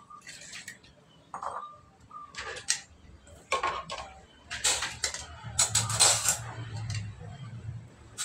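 Dishes being washed by hand: ceramic plates, bowls and cups clinking and clattering against each other, with water poured and splashed over them. The clatter comes in irregular bursts and is densest and loudest a little past the middle.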